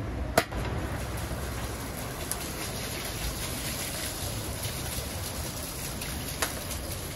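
Pilaf cooking in a kazan, a steady sizzling hiss, with a sharp click just after the start and another near the end.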